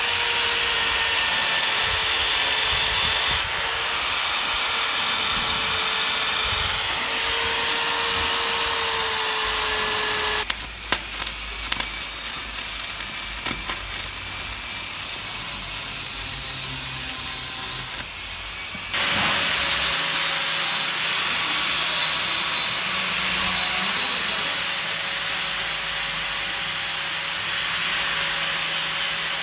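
Angle grinder with a wire cup brush running steadily as it scrubs old grime from a railway wagon's frame. About ten seconds in it gives way to the irregular crackle of MIG welding. From about nineteen seconds an angle grinder with a flap disc grinds a wrought-iron railing with a high, steady whine.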